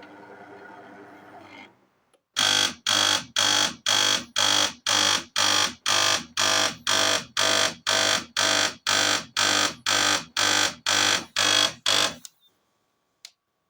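DeLonghi Caffe Corso coffee machine running a low hum for about two seconds, then its pump buzzing loud in about twenty even pulses, two a second, before stopping suddenly, as it tries to rinse. The technician takes it for a pump running dry or not pushing water through a clogged, scaled-up system.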